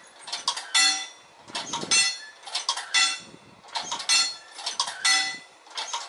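Railroad wigwag crossing signal in operation, its bell clanging in short clusters of strikes about once a second as the red-lit banner swings back and forth.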